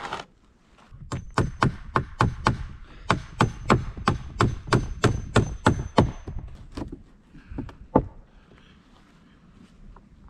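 Hammer driving 3-inch common nails through rough-sawn wooden planks, a quick run of sharp blows at about three a second for some six seconds, then one last single blow.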